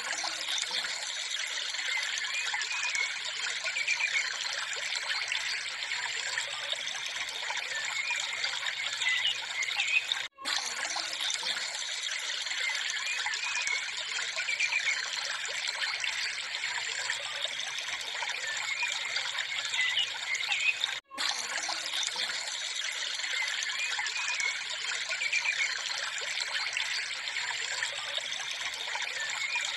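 Trickling water as a looped background track, repeating about every ten and a half seconds with a brief cut between repeats.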